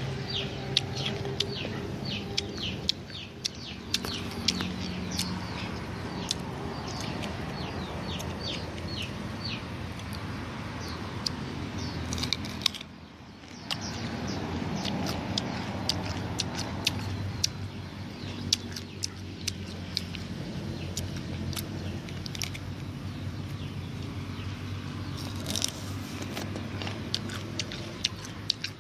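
Birds chirping in quick, short falling peeps, with scattered sharp clicks and a steady low hum underneath.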